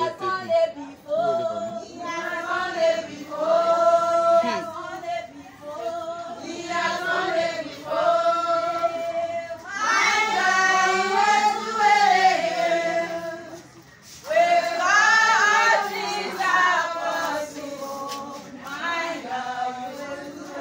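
A congregation singing a hymn together without instruments, a mix of women's, men's and children's voices holding long notes line by line, swelling louder about halfway through.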